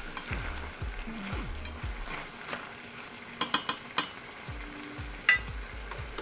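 Octopus and shrimp sizzling in a stainless steel pan while being stirred with a silicone spatula. A few sharp taps come a little past halfway.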